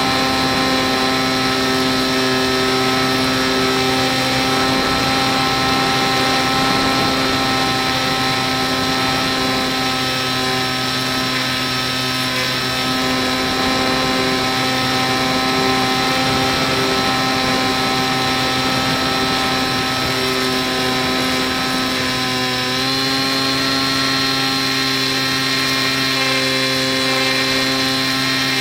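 Electric motor and 7x5 propeller of an RC Factory Step One foam model plane in flight, a steady buzzing whine at even throttle; its pitch shifts slightly about 23 seconds in.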